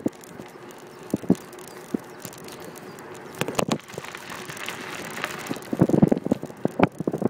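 Bicycle riding on a paved path: a steady rush of wind and rolling noise with irregular knocks and rattles, the loudest cluster about six seconds in.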